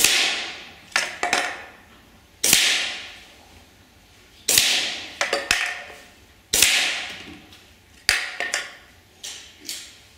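Moderated Hammerli 550 spring-piston air rifle fired five times, about every two seconds. Each shot is a sharp crack with a ringing tail, and lighter knocks follow as pellets strike aluminium drink cans and knock them over.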